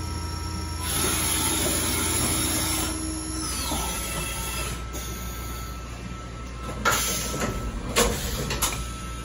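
CNC vertical machining center moving its axes at rapid traverse over a steady hum: a rushing hiss with a whine that falls away as the motion stops, about three and a half seconds in. Near the end the side-mount tool-changer arm swings in and swaps a tool with three sharp clunks.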